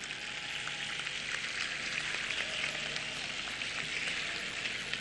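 Large rally crowd cheering and clapping, a steady crackling wash of noise.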